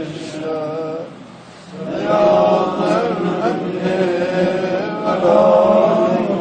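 A man's voice chanting the daily Ramadan dua, an Arabic supplication, in a melodic recitation, pausing briefly about a second in before the next phrase.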